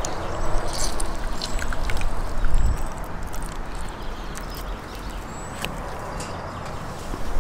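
Steady outdoor background noise with a few light clicks and knocks, a low thump about two and a half seconds in, and faint high bird chirps.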